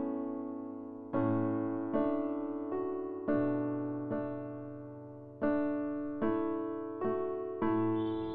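Background music: a slow piano-like keyboard melody, its notes struck one after another, roughly once or twice a second, each fading away before the next.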